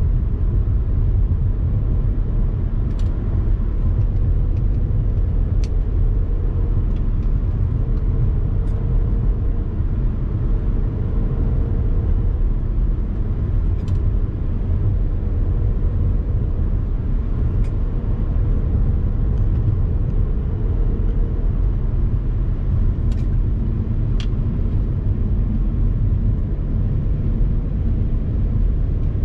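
Vehicle driving along a road, with a steady low rumble of road and wind noise and a faint tone that wavers slightly in pitch. A few light ticks come through now and then.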